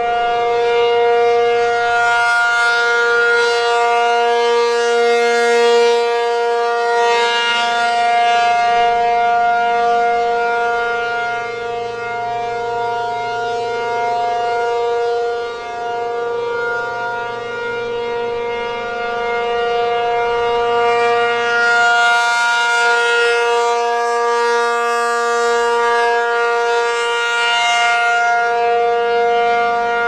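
American Signal T-135AC rotating outdoor warning siren sounding a steady, unwavering Full Alert tone. It grows louder and brighter as the horn swings toward the listener, a few seconds in and again about twenty-two seconds in, and dulls as the horn turns away between.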